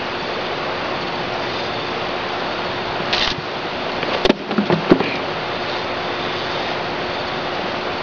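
Steady rush of river water. A brief hiss comes about three seconds in, and a short cluster of sharp knocks about a second later.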